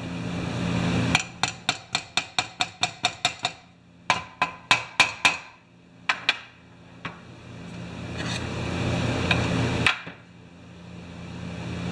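Brass-headed hammer tapping on the body of an old Homelite C51 chainsaw engine to work a part loose during disassembly: a quick run of about a dozen light taps, about five a second, then a shorter run of about six, then a few single taps spaced out.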